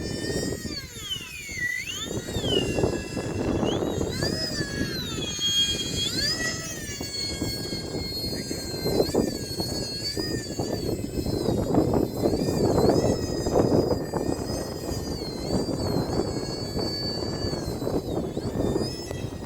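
Electric ducted-fan whine of a UMX A-10 model jet, rising and falling in pitch again and again with the throttle as it flies. Gusty wind rumbles on the microphone underneath.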